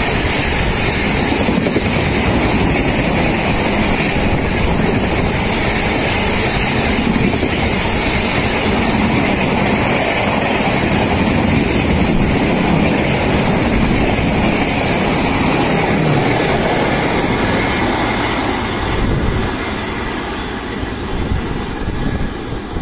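Express passenger coaches passing at speed: a steady loud rush and rumble of wheels on rail, easing off near the end.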